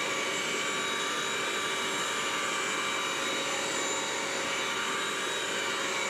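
BISSELL Crosswave wet/dry vacuum running steadily, its motor a constant high whine over a rushing hiss as it scrubs and sucks up a sticky peanut butter spill.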